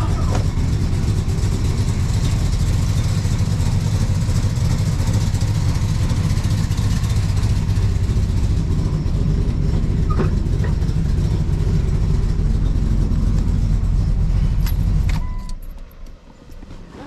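The twin-turbocharged 5.9-litre V8 of a 1999 Dodge Dakota R/T idles steadily through new Borla straight-through mufflers, a quiet, even exhaust rumble. About fifteen seconds in the engine is switched off and the rumble stops abruptly.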